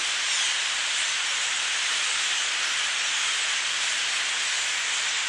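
A vast flock of thousands of blackbirds whose massed noise blends into a steady, even hiss like falling rain.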